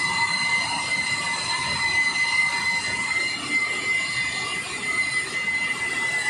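Electric car polisher running with a steady high whine, its foam pad polishing the paint of a car's hood.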